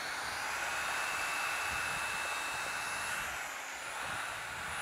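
Corded right-angle drill, geared down for torque, running steadily with a mixing paddle churning thick lime plaster in a 5-gallon bucket; a steady motor whine.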